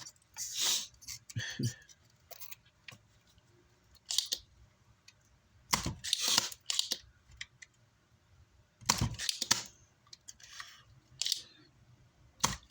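Intermittent clicks and scrapes of hand tools working at a badly burnt capacitor on an amplifier circuit board, in separate short bursts with pauses between.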